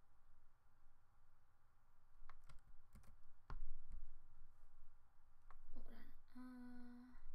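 A few scattered sharp clicks of someone working at a computer, then near the end a short steady hummed note from a person's voice.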